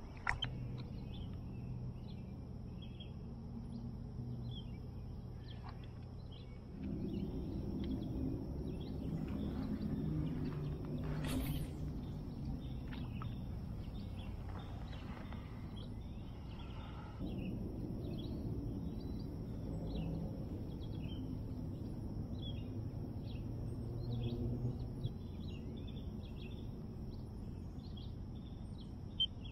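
Many small birds chirping and calling over a steady low hum, with one short sharp noise about eleven seconds in.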